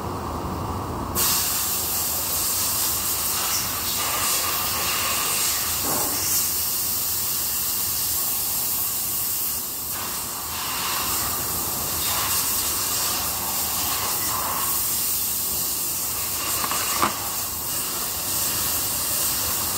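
A steady, even hiss comes on suddenly about a second in and holds, with a few short clicks.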